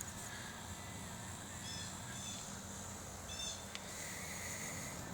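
Birds chirping in short clusters of quick high notes a few times, over a faint steady low hum.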